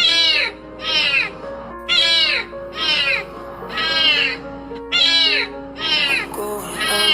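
A cat meowing over and over, about once a second, each meow a short arched cry, over background music with long held notes.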